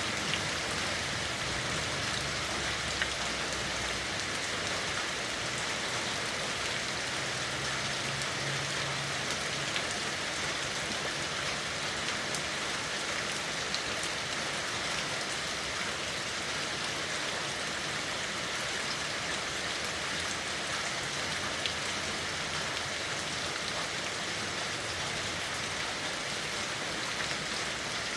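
Steady rain falling and pattering on surfaces, a continuous even hiss with scattered individual drops ticking through it.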